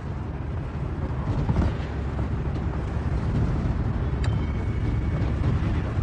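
Steady low rumble of a car's interior while driving: engine and road noise heard from inside the cabin. There is a faint click about four seconds in.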